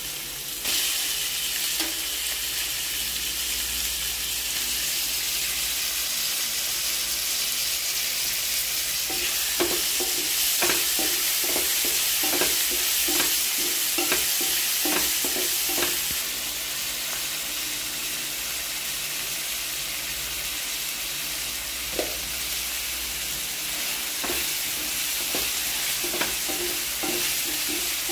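Chopped tomatoes, shallots and green chillies sizzling in hot oil in a nonstick frying pan. The sizzle jumps up just under a second in. A wooden spatula scrapes and taps the pan in runs of quick strokes about a third of the way in and again near the end.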